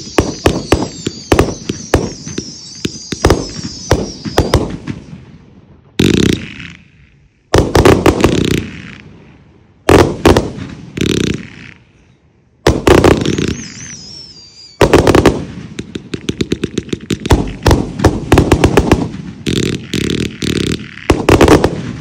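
The Admiral, a 260-shot consumer firework cake, firing: a rapid string of bangs and crackling reports with a wavering high whistle over the first few seconds, then single loud bangs a second or two apart. A second whistle comes about two-thirds of the way through, and a dense rapid barrage of reports fills the last several seconds.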